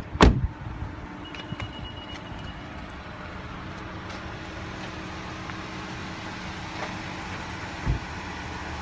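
2016 Honda Civic EX's 2.0-litre inline-four idling steadily, with one sharp knock just after the start and a softer thump near the end.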